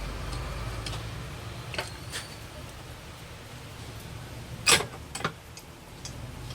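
A few scattered sharp clicks and knocks, the loudest a pair about three-quarters of the way through, over a low hum that fades in the first second.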